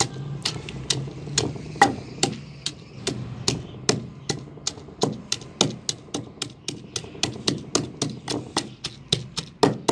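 Wooden pestle pounding green chillies in a stone mortar (dauri): a steady run of thuds, about three to four strokes a second, crushing them into a coarse chutney paste.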